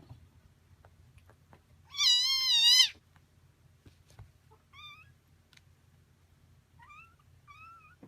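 Cat meowing: one loud, long meow about two seconds in, then three shorter, quieter meows.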